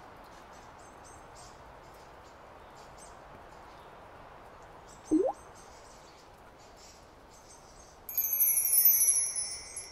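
Cartoon sound effects for a thaw: faint high bird twittering, one rising water-drop plink about five seconds in from the melting icicle, and a bright shimmering chime near the end, dipping slightly in pitch.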